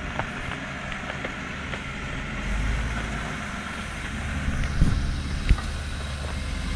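Off-road vehicle engine running at low speed as it climbs a rocky trail, pulling harder from about two and a half seconds in. Two sharp knocks come about a second apart near the middle.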